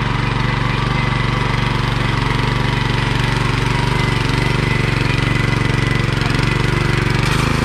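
A Búfalo walk-behind tractor's engine runs steadily while it works the soil.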